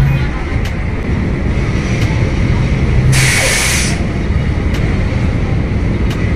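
Heavy truck towing a coal wagon rolling slowly down a steel ferry ramp, its diesel engine running low and steady. A short burst of air-brake hiss comes about three seconds in, with faint knocks every second or so.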